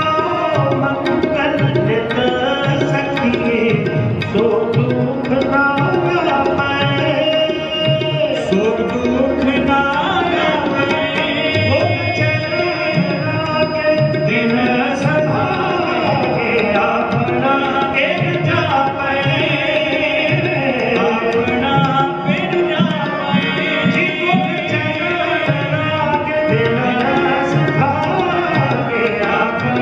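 Sikh kirtan: two Nagi harmoniums and a pair of tabla playing, with men singing a shabad over them.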